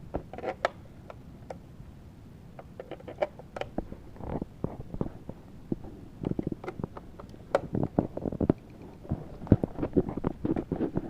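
Handling noise from a small drone: irregular sharp plastic clicks and knocks, with bouts of rustling.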